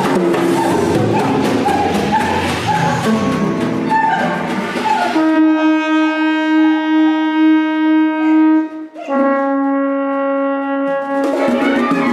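Symphony orchestra playing. About five seconds in, the ensemble drops away to a single wind instrument holding a long note; after a brief break it holds a second, slightly lower long note, and the fuller orchestra comes back in near the end.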